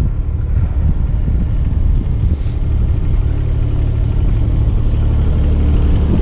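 Kubota U17-3 mini excavator's diesel engine idling steadily with a low hum, growing slightly louder near the end.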